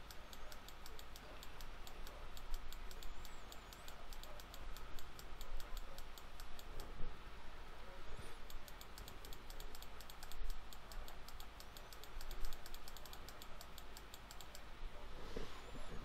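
Soft, irregular clicking and tapping of a computer keyboard and mouse while brush strokes are painted in Photoshop.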